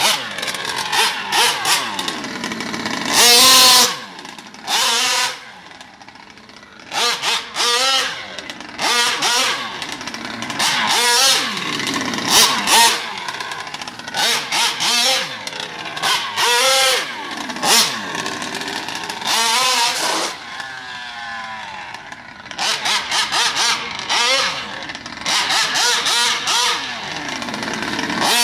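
HPI Baja 5T RC truck's 50.8cc twin-cylinder two-stroke engine revving in many short throttle bursts as it drives, the pitch rising and falling with each blip, with a few quieter idling stretches.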